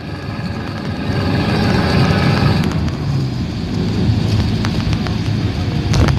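A car driving: the steady low rumble of engine and tyre road noise, with a few faint clicks.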